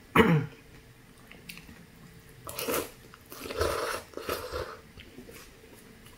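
A person slurping pho rice noodles from a bowl: three noisy slurps about two and a half, three and a half and four and a quarter seconds in, with soft chewing between them. A brief hum of the voice comes right at the start.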